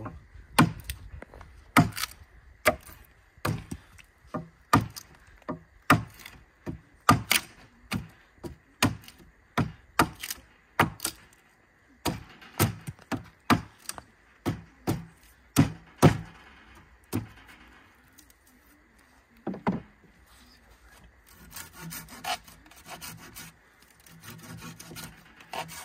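Blows chipping out a notch in a wet log pole: a sharp wooden knock about once a second, stopping about sixteen seconds in. One more knock follows a few seconds later, then softer rasping scrapes on the wood near the end.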